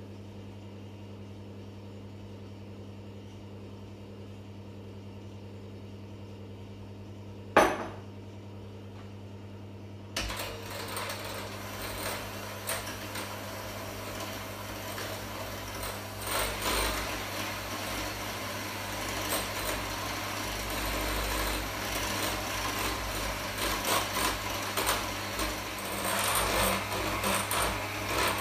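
Electric hand mixer beating egg whites, switched on about a third of the way in and running on, growing louder towards the end. Before it starts there is only a faint steady hum and one sharp knock.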